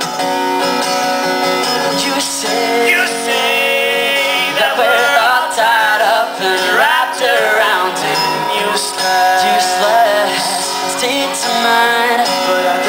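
Live acoustic guitar strumming chords under a man's singing, with long, wavering vocal lines that slide up and down in the middle.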